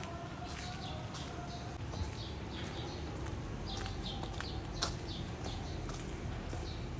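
Small birds chirping, many short high calls repeating throughout, over a steady low background rumble.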